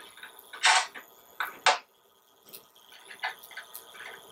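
Hex nuts with flat and star washers being handled and spun onto bolts by hand, giving short metallic clicks and scrapes. Three louder clicks come in the first two seconds, then softer ones.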